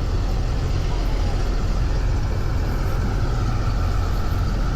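Parasailing boat's engine running steadily, a constant low rumble with a faint wavering whine above it.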